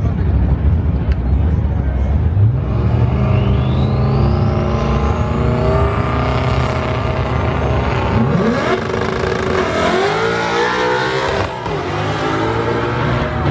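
Two drag cars, one of them a Ford Mustang, with their engines running loud at the starting line, revs rising and falling, then both launching off the line about ten seconds in, the engine note climbing steeply as they pull away.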